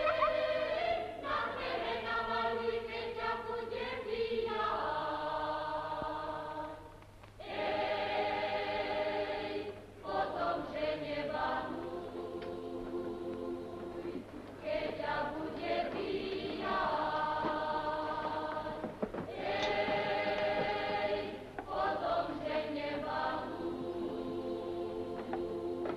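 A choir singing a Slovak folk wedding song in phrases, with short breaks between them.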